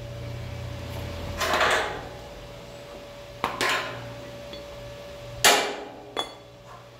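Arc welder struck against steel plate in three short crackling bursts that fail to hold a steady arc, over a steady electrical hum. The amperage is set too low for the thicker steel.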